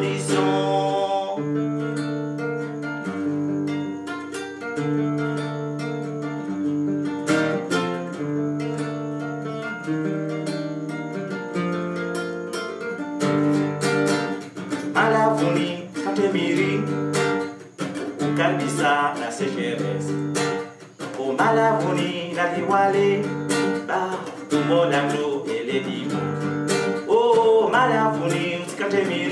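Acoustic guitar, picked and strummed, accompanying a man's singing voice.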